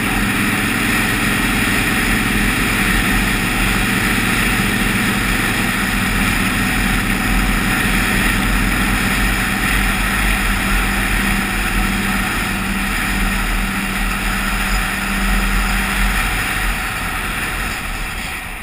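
Triumph Daytona 675R's three-cylinder engine running at steady cruising speed under heavy wind rush. Its steady note drops away about three seconds before the end and the noise eases off.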